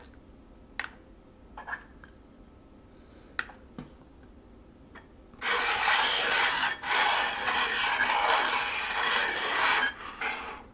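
Small round metal tins being slid and shuffled across a tabletop: a steady scraping rub lasting about four seconds in the second half, preceded by a few light clicks.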